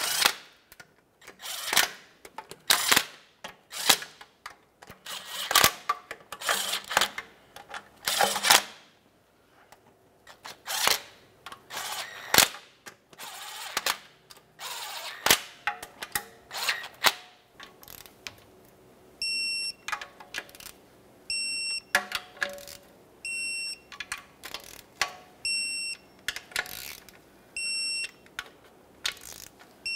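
Cordless driver running in short bursts as it snugs the steel transmission pan bolts, with clicks of the socket on the bolt heads. From about two-thirds of the way through, an electronic beep repeats about once a second.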